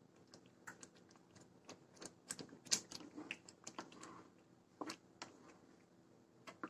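Wooden spatula stirring thick semolina (rava kesari) in a nonstick pan: faint, irregular clicks and taps of the spatula against the pan, with a couple of louder knocks about halfway and later on.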